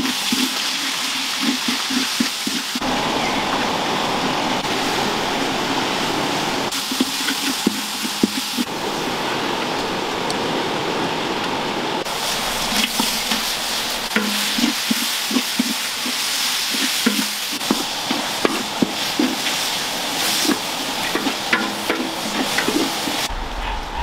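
Paste frying and sizzling in hot oil in a large wok, with a spatula scraping and stirring against the metal. The hiss changes abruptly several times where shots are cut together, and a low rumble takes over in the last second.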